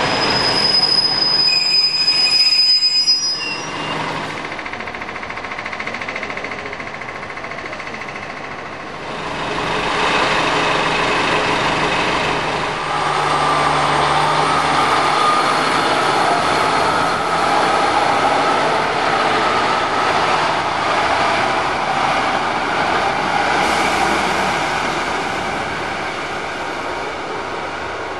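Diesel multiple-unit trains: a high wheel squeal for the first few seconds as a unit pulls away round the curve. From about nine seconds comes the louder running of another diesel unit passing close by, its engine and wheels, easing off near the end.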